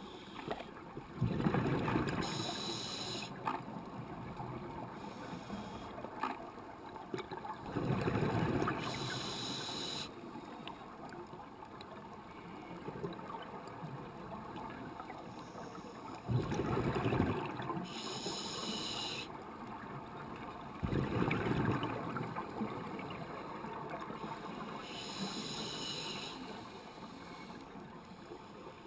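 Scuba diver breathing through a regulator underwater, heard through the camera housing: about four slow breaths, each a rush of exhaled bubbles and a short hissing inhale.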